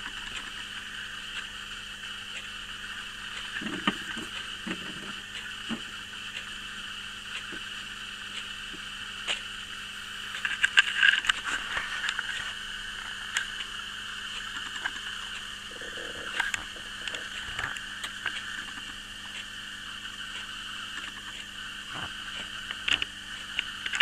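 Small electric gear drive of a homemade plastic solar tracker running with a steady whir, with scattered light clicks and knocks from the plastic mechanism, most of them about ten to twelve seconds in.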